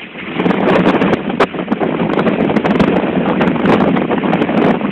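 Strong wind blowing across the microphone, with the rush of heavy seas breaking along the bulk carrier's hull beneath it. The noise swells within the first half second and then stays loud, with crackling gusts.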